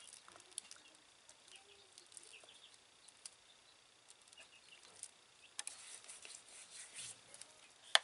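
Faint rustling and scattered light clicks of unboxing handling, as the white noise machine's power cord comes out of its packaging. A louder stretch of rustling in the second half ends with one sharp click near the end.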